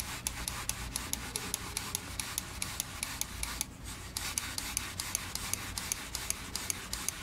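Left button of a Logitech G Pro X Superlight gaming mouse, fitted with a new Omron China 10M micro switch, clicked over and over in a rapid, even rhythm, with a brief pause about three and a half seconds in. This is a test of the replaced switch, whose click is described as much more stable than the old Omron China G-type.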